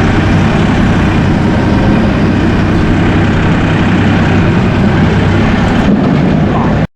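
Mahindra 2.7-litre three-cylinder diesel tractor engine running steadily under throttle while the tractor drives in third gear, high range. The sound cuts off abruptly just before the end.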